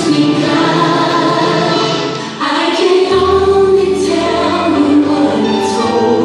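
Music with a choir singing. The sound dips briefly about two and a half seconds in, then carries on with a heavier bass.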